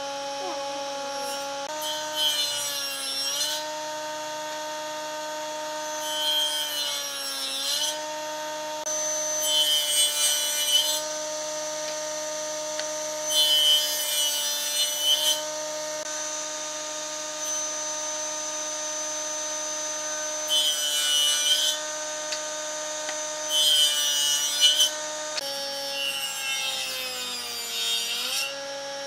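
Table saw on a combination woodworking machine running with a steady whine, cutting into the end of an upright wooden strip seven times. Each cut is a rasping hiss, and the blade's pitch drops under the load of the cut, then recovers between passes.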